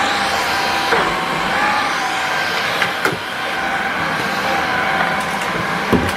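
Cordless stick vacuum cleaner running steadily with a constant motor whine as its floor head is pushed over a woven rug, with a few knocks from the head.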